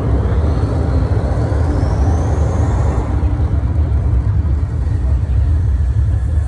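Deep, steady low rumble of the projection show's soundtrack through loudspeakers, with a high whistle rising over the first three seconds.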